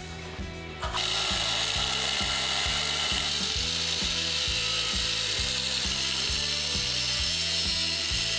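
Angle grinder grinding steel tubing, starting about a second in and running steadily, over background music with a steady beat.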